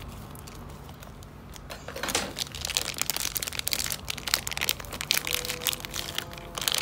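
Thin plastic bag crinkling and rustling as it is cut and peeled off a slime-coated toy, in many quick crackles that grow busier from about two seconds in.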